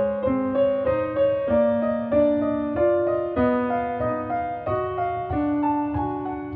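Background piano music: a steady stream of sustained notes, changing a few times a second.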